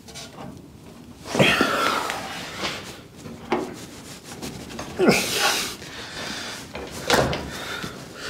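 A pickup's rear bumper being shifted by hand against the truck: three bouts of metal scraping and clunking, about a second, five seconds and seven seconds in.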